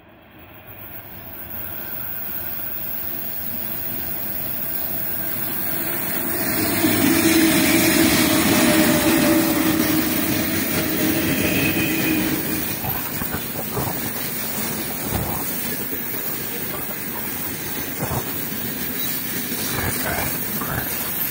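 Freight train hauled by 2ES5K 'Ermak' electric locomotives approaching and passing close by: the locomotives' running hum grows loud, peaks about a third of the way in, then gives way to the rumble and irregular clicking of freight wagon wheels over the rails.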